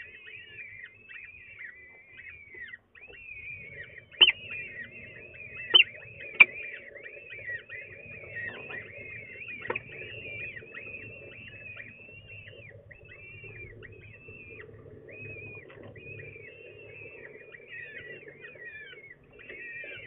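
Peregrine falcon chicks cheeping without pause, a fast run of short, high, arched peeps as they beg for food. Three sharp knocks come about four to six and a half seconds in.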